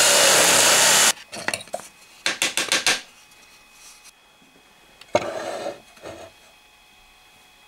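Drill press boring into a pine board with a Forstner bit, the cutting noise stopping abruptly about a second in. Then a run of light clicks and knocks as the wooden board is handled in a metal vise, and a single sharp knock with a short rattle a couple of seconds later.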